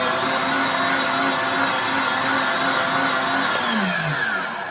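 Countertop blender motor running at full speed, churning a liquid milk tea mixture with cold water. About three and a half seconds in, its pitch falls as it is switched off and spins down.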